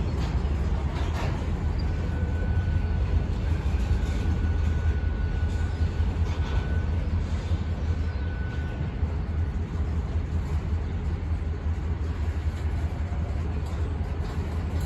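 Freight train's covered hopper cars rolling past, a steady low rumble of steel wheels on rail. A faint, thin, high squeal runs from about two seconds in until about nine seconds.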